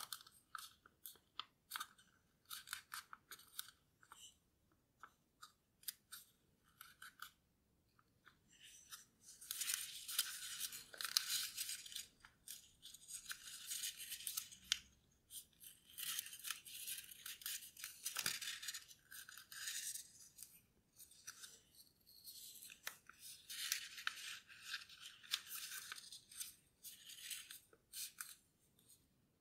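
A sheet of paper rustling and crinkling as it is folded and creased by hand into a paper airplane. There are scattered crisp ticks, and longer stretches of denser rustling about ten, sixteen and twenty-four seconds in.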